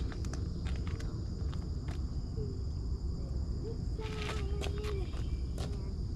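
Outdoor ambience at a chicken coop: a steady low rumble with a thin steady high tone, scattered light clicks, and a drawn-out, wavering low call from about two and a half to five seconds in.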